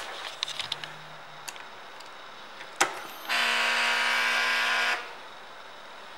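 A click as the ignition of a 2014 Harley-Davidson Softail Slim is switched on, then a steady electric buzz for under two seconds: the fuel pump priming the fuel-injection system.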